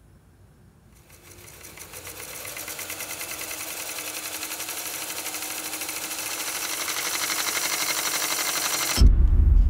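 Microfilm reader winding its film at speed: a motorised whirr with a rapid flutter that starts about a second in and grows steadily louder, then cuts off about nine seconds in with a heavy low thud as the reel stops.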